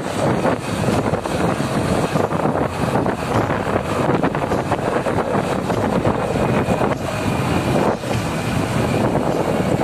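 Wind rushing over the microphone of a moving vehicle on the road, a steady loud rush with road noise underneath.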